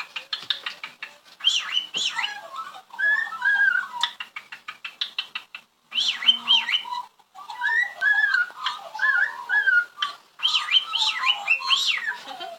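Pet birds whistling and chirping in short repeated phrases, cut into several abrupt sections, with a quick run of clicks in the first second.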